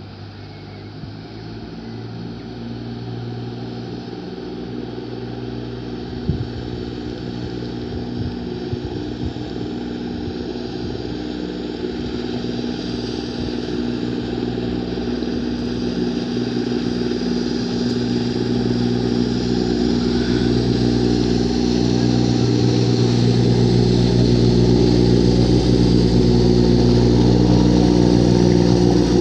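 Lister diesel engine of a small open boat running at a steady speed. It grows steadily louder as the boat approaches, with a deep rumble coming in near the end.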